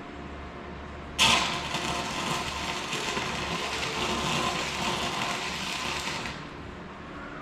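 Electric welding arc running for about five seconds, starting abruptly about a second in and then stopping, as fittings are welded onto an evaporator manifold. A low steady hum continues underneath.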